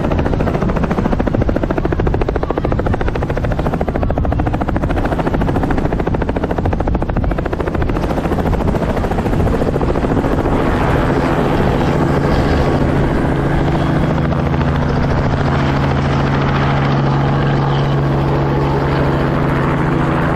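A tour helicopter taking off close by: the rapid, even chop of its rotor blades over loud engine noise. About halfway through, a steady droning tone comes in and holds.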